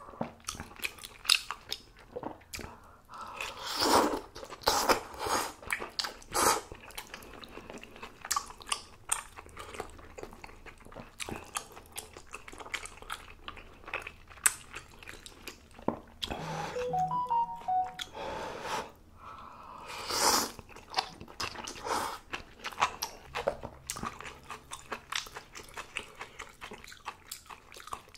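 Close-miked eating of spicy malatang noodle soup: chewing and biting with a dense run of short wet clicks and smacks. There are longer, louder stretches about four seconds in and again about twenty seconds in.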